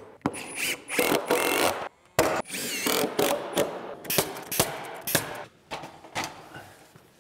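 Hand-held power tool driving fasteners through metal joist hangers into a wooden header: a string of sharp hits with a rising and falling whine between them in the first few seconds.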